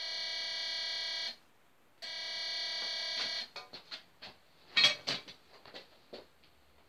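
Home-built Walker 18 walk-through metal detector's alarm sounding two buzzy tones, each about a second and a half long, signalling that metal is passing through it. About five seconds in, a short clatter of knocks is the loudest sound.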